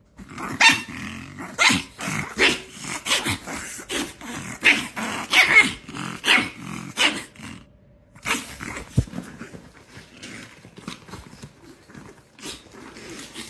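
A dog growling, in a string of short bursts through the first eight seconds or so, then fainter scattered sounds.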